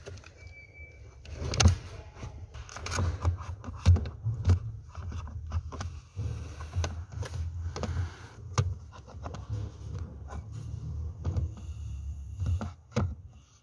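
Irregular plastic clicks, knocks and scraping as a car's A/C servo motor is handled and pushed into place on the plastic HVAC case under the dashboard.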